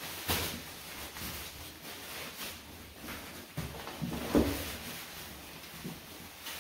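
Backpack rain cover rustling as it is pulled off the pack and bunched up by hand, with a louder bump from handling the pack about four seconds in.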